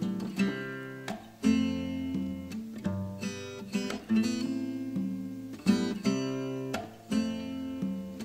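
Background music: a strummed acoustic guitar playing chords, with no singing.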